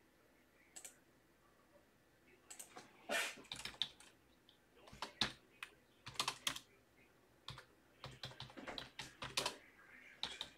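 Typing on a computer keyboard: quick key clicks in irregular clusters, starting a couple of seconds in.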